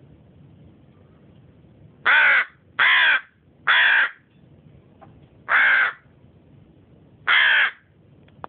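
Hooded crow cawing: five loud caws of about half a second each, the first three about a second apart, then two more about two seconds apart.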